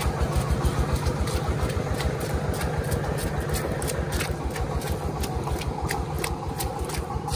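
Engine of a farm tractor-cart fitted with a stationary engine, running steadily with an even, rapid beat, with a few light clicks and rattles over it.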